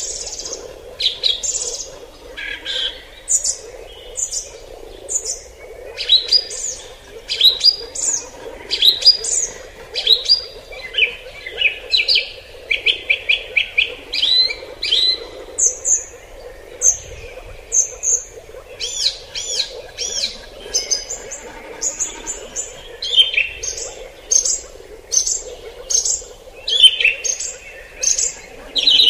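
Forest birds singing: many short, high chirps and quick trilled runs of notes, one after another, over a steady low hum.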